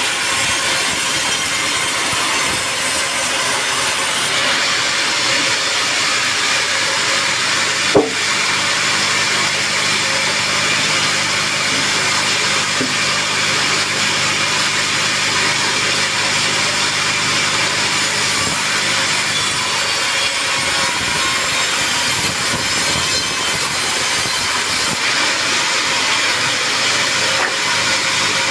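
Sawmill saw cutting lengthwise through a teak log, a steady hiss of the blade in the wood, with one sharp knock about eight seconds in.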